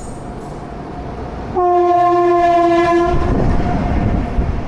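Indian Railways electric locomotive sounding its horn loudly as it pulls into the platform, a two-note blast of about a second and a half whose upper note lingers faintly. It is followed by the low rumble of the train rolling past.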